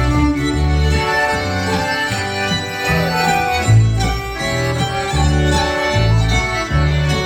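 Dance band playing a reinlender, a Norwegian old-time dance tune, with a steady bass beat about twice a second under the melody.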